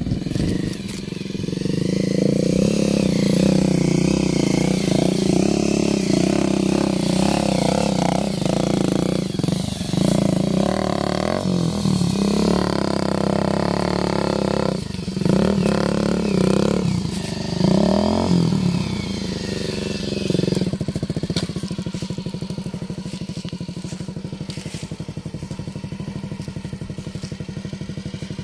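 Bajaj Avenger motorcycle's single-cylinder engine running while off-road riding, its pitch rising and falling with the throttle. In the last several seconds it settles into a steadier, lower run with even pulses.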